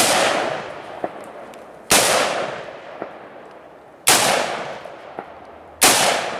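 Four rifle shots from a scoped AR-15-style rifle, spaced about two seconds apart, each followed by a long echo dying away.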